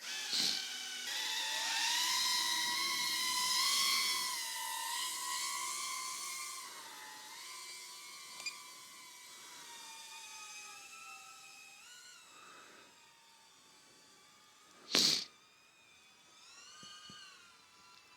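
Small ducted-propeller FPV drone (BetaFPV Pavo20 Pro II cinewhoop) taking off: a high whine from its motors and props, its pitch drifting with the throttle, loudest at first and then growing fainter as it flies off. A short loud rush of noise comes about fifteen seconds in.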